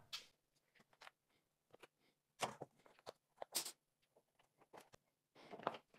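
Faint handling noises while a frozen egg-shaped dessert is pushed out of its mold: scattered small clicks and crackles, the loudest about two and a half and three and a half seconds in.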